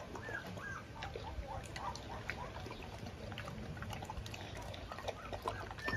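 Presa Canario eating from a metal bowl: wet chewing, slurping and crunching of kibble soaked with duck broth, made of many small clicks and crackles. Faint, short high squeaks come now and then, a few near the start and again near the end.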